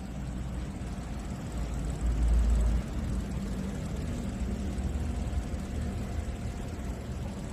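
A steady low hum and rumble with a faint steady whine above it, swelling louder for about a second around two seconds in.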